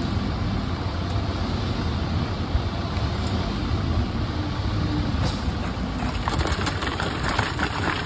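An engine running steadily with a low rumble. From about six seconds in, a shovel scrapes through wet concrete.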